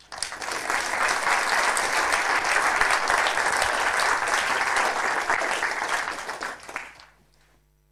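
Audience applauding, a dense clapping that starts at once and dies away about seven seconds in.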